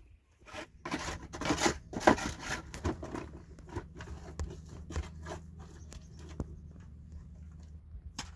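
Wet mortar being scooped by hand from a plastic tray and pressed into gaps in a cinder-block wall: gritty scraping and rubbing, busiest in the first three seconds, then lighter scrapes and ticks.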